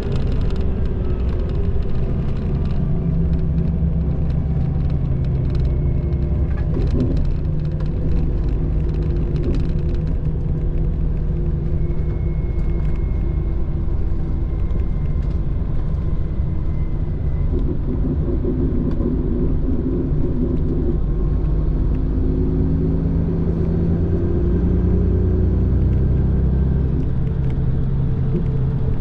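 Inside the cabin of a Mitsubishi Fuso Aero Ace diesel highway coach on the move: a steady low drone of engine and tyre noise, with the engine's note rising and falling.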